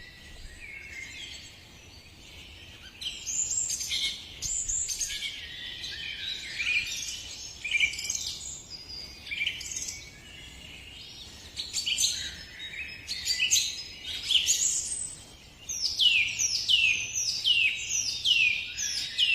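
Birds chirping and calling in quick short notes, several voices overlapping. Near the end one bird repeats a falling call about twice a second.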